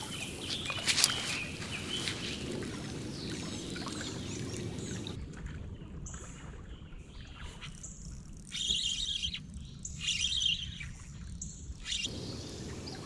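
Songbirds chirping in short bursts over a low steady outdoor background. The chirping comes through clearly once the background drops, about five seconds in, and is loudest in two spells in the second half.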